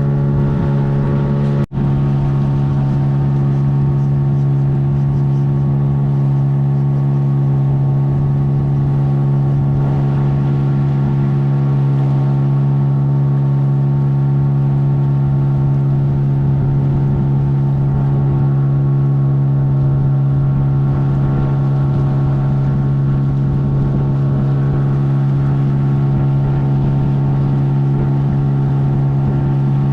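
Boat engine running at a steady speed, a loud even drone. The sound cuts out for an instant just under two seconds in.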